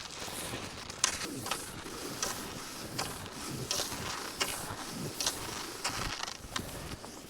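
Rhythmic crunching strides in cold, squeaky snow, about one every three-quarters of a second.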